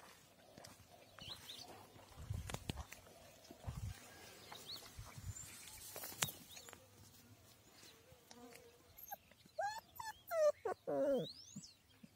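Footsteps on a gravel path, then a young puppy whimpering in a run of high, falling whines near the end.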